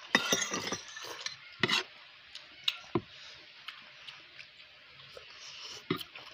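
Noodles being slurped and chewed, with a few sharp clicks of a fork against the bowl.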